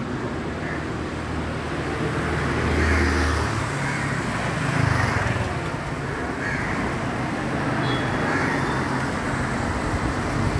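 Street traffic: a steady din of passing motor vehicles, with a low engine rumble in the first few seconds and swells as vehicles go by about three and five seconds in.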